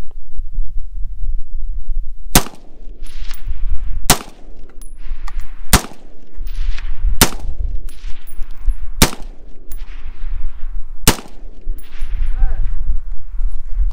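Six single shots from an AR-style rifle, fired at a slow, even pace about one every one and a half to two seconds, each followed by a trailing echo.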